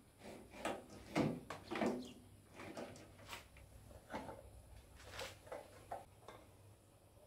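Ceramic plates knocking and clinking as they are lifted from a stack and handled, a string of light knocks spread through.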